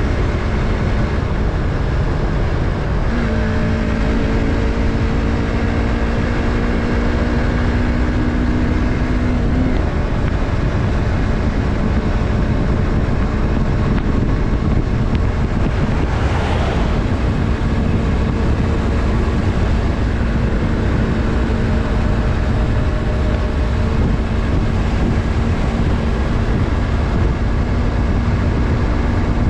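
Yamaha MT-03 motorcycle's 321 cc parallel-twin engine running on the move with wind noise, its note held steady for several seconds and then settling slightly lower about ten seconds in. A brief whoosh comes about sixteen seconds in.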